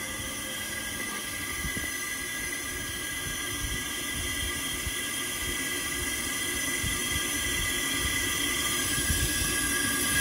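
Automatic blind-rivet feeding machine running idle: a steady hum and hiss with several high whining tones held throughout, growing slightly louder towards the end.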